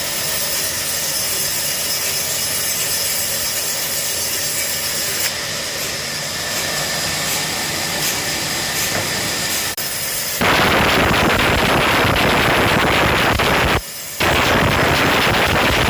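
Woodworking machinery running with a steady hiss. About ten seconds in, a much louder rushing noise cuts in; it breaks off briefly near the end and then resumes.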